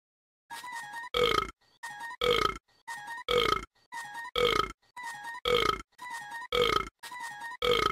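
Music: a strictly regular loop of short sounds, a pair about every second, a quieter held note followed by a louder note that falls in pitch.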